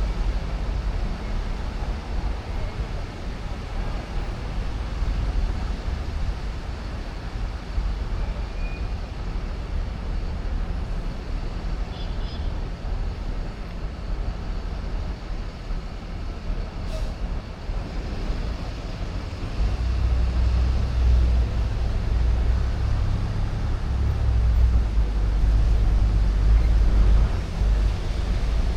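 City street ambience at night: a steady hum of traffic with a low rumble that swells and grows louder about two-thirds of the way through, as of a heavy vehicle passing, and a single faint click midway.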